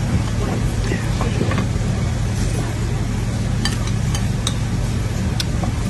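Steady low hum under an even background noise, with scattered faint clicks.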